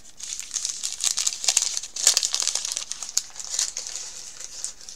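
Wrapping paper on a tiny gift-wrapped package crinkling and rustling in the hands as it is unwrapped, a dense run of irregular crackles.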